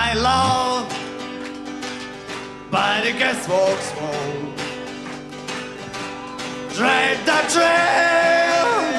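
Folk-rock band playing: sung phrases with long held notes over guitar and other plucked strings.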